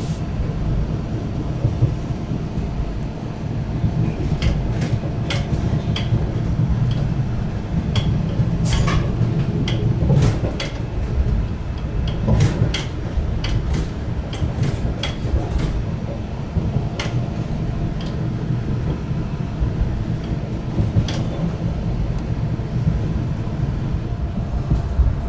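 Diesel railcar running along the track, a steady low rumble of engine and wheels with irregular sharp clicks and knocks from the running gear.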